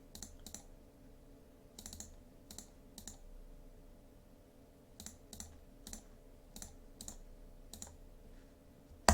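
Faint, irregular clicks of a computer mouse and keyboard, several coming in quick pairs like double-clicks, over a low steady hum.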